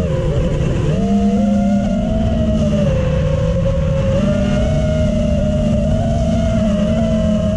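Multirotor drone's electric motors and propellers whining, several slightly different pitches running together. The pitch dips and scatters about a second in, then climbs back and holds with small rises and falls as the throttle changes.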